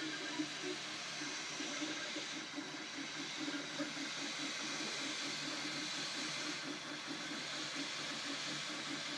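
MakerBot 3D printer running mid-print: a steady fan hiss with a quick, rhythmic whirring from the stepper motors as the print head shuttles back and forth.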